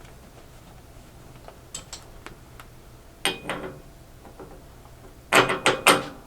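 Metal parts clinking and clattering as a flange, spacer and buffing wheel are fitted onto a steel lathe mandrel. A few light ticks come first, then a clatter, and a loud cluster of ringing clinks near the end.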